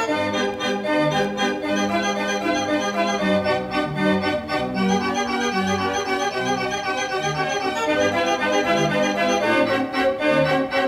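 Background instrumental music: sustained chords over a bass line that steps from note to note.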